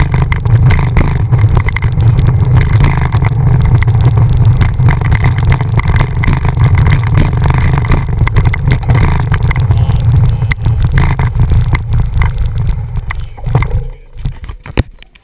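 Wind buffeting the microphone of an action camera on a moving road bike, a loud steady low rumble. It dies away about fourteen seconds in as the bike comes to a stop.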